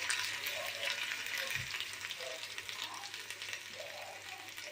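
Ginger-garlic paste sizzling and crackling in hot oil in a pan, fried to cook off its raw smell; the sizzle grows gradually quieter.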